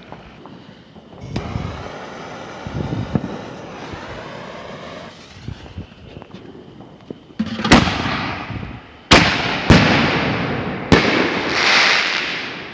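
5-inch Nishiki willow canister artillery shells going off. There are low dull thumps in the first few seconds. About halfway through comes a loud sharp crack, then three more sharp bangs a second or so apart, each trailing off, and a rushing crackling hiss near the end as the willow stars burn.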